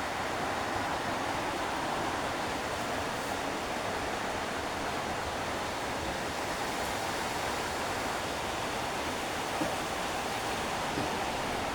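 Steady rushing water, an even noise that holds the same level throughout.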